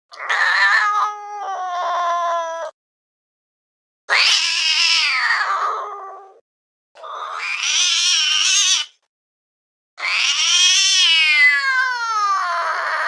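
Domestic cat giving four long, drawn-out yowls with short silences between them, the last the longest and sliding down in pitch.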